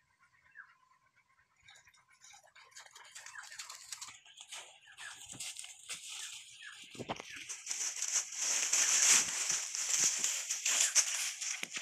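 Dry leaf litter crackling and rustling under hands and feet, building up to a loud, hissing crunch over the last few seconds, with a dull thump about seven seconds in.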